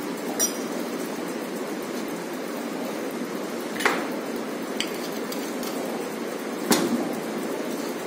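Bananas in brown-sugar caramel sizzling steadily in a frying pan, with a few sharp clinks of a glass bottle and a metal measuring jigger as rum is measured out.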